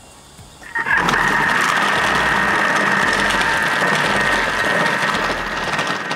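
Thermomix motor driving the Cutter accessory's spinning blade disc, thick-slicing red cabbage pushed down the feed chute. A steady high whine starts abruptly about a second in and eases off near the end.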